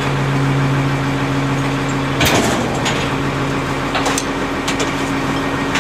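Rear-loader garbage truck idling with a steady hum while trash is thrown into its hopper. A loud crash comes about two seconds in as a bulky item lands, followed by several lighter knocks and clatters.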